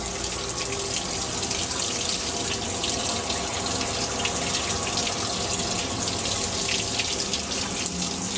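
Water flowing steadily through a concrete drainage channel, an even rushing hiss that does not let up.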